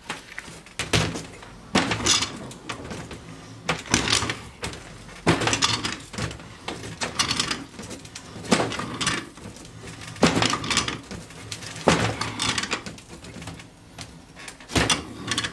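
Large channel-lock pliers turning a threaded section of a forklift power steering cylinder loose: the jaws bite, slip and are reset, giving irregular sharp metal clicks and scrapes every second or two.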